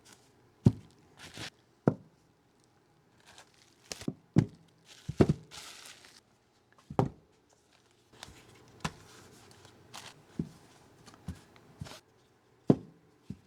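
Tools being picked up and set down on a hard surface: a dozen or so separate knocks and clicks, with a brief crinkle of plastic packaging about five seconds in.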